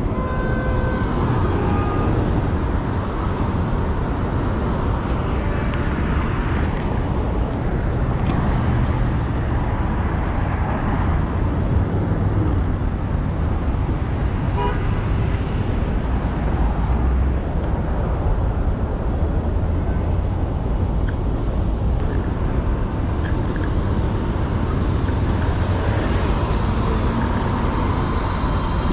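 City street traffic with a steady low rumble, heard while riding an electric scooter among cars, and a short car horn toot near the start.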